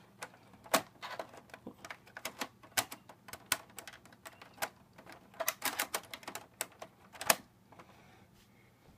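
Irregular clicks and knocks of the hard drive and cables being plugged back into an Xbox 360 Slim console. They come thick and fast for about seven seconds, then die away.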